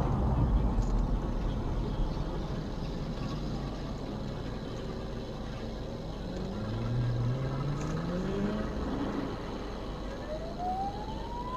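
Traffic at an intersection: a low engine rumble fades over the first couple of seconds, then a car engine revs up through its rise in pitch around the middle. Near the end a siren begins winding up in one steadily rising tone, the start of a police car's siren.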